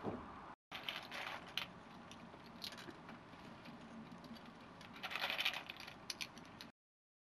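Small plastic Lego bricks clicking and rattling as they are handled and fitted together over plastic bowls, with a louder clatter of pieces about five seconds in.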